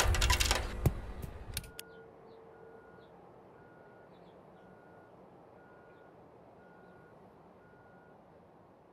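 A sound-effect clatter with a few sharp knocks dies away within about two seconds. It is followed by a faint electronic beep repeating about once a second, of the kind a vehicle's reversing alarm makes, over low hiss.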